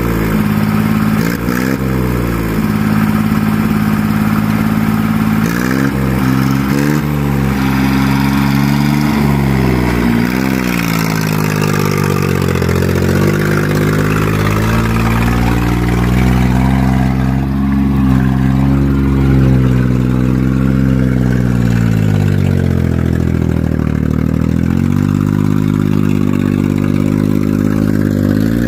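Small crawler dumper's diesel engine running and being revved, its pitch rising and falling repeatedly as the machine is driven loaded with soil.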